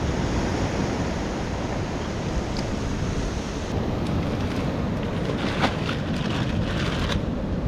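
Ocean surf washing in steadily, with wind on the microphone; a few light knocks about two-thirds of the way through.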